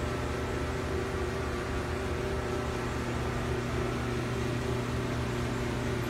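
Steady electric hum of idling machinery: a low buzzing drone with a few fixed pitches and no change throughout.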